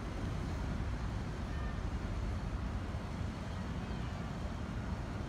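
Steady low outdoor rumble of city traffic mixed with wind buffeting the microphone, with no distinct events.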